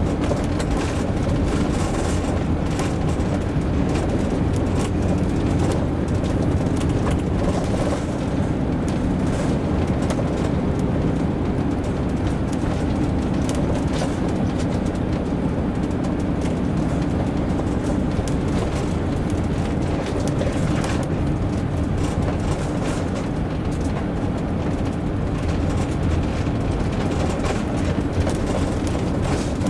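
Motorhome driving on a winding road, heard from inside the cab: a steady engine and tyre rumble with occasional small clicks and rattles.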